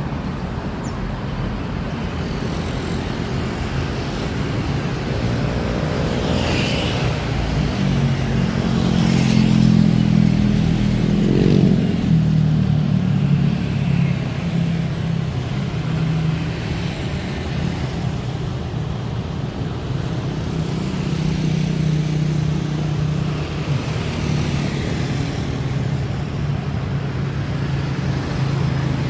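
Diesel engine of a Telaga Indah Armada intercity bus running on the road, a steady low drone that swells and rises slightly about a third of the way in, over road and traffic noise.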